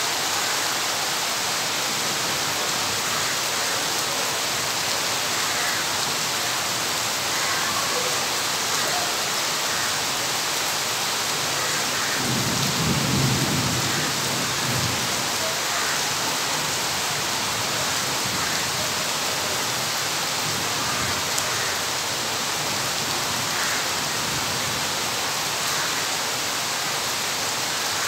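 Heavy rain falling steadily, with a low rumble of thunder lasting about three seconds near the middle.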